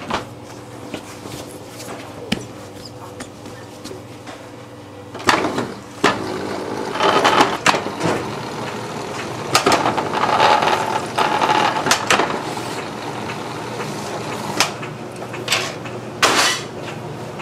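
Bakery dough sheeter starting up about five seconds in and running steadily, its belts carrying a slab of bread dough through the rollers, with sharp knocks every few seconds. Before that, only small clicks and soft handling of the dough.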